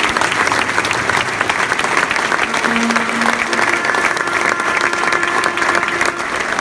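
Large football-stadium crowd applauding: thousands of fans clapping densely and steadily.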